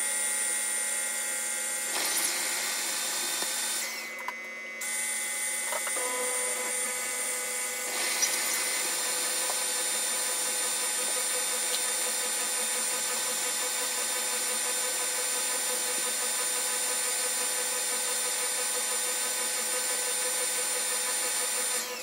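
Tineco S3 wet/dry floor washer running its self-cleaning cycle in its dock: the motor runs steadily with a whine. The sound dips briefly about four seconds in and changes tone around six seconds in.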